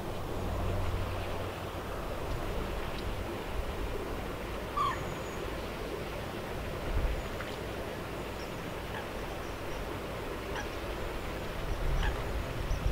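Outdoor lakeside ambience: a steady rushing wash of noise, with a few faint, short bird chirps about five seconds in.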